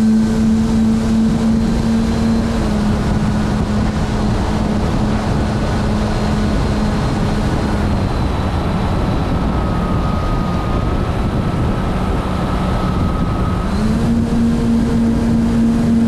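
Radio-controlled model airplane's motor running steadily in flight, heard from a camera mounted on the plane, with airflow rushing over the microphone. Its pitch steps down slightly twice, then rises again near the end.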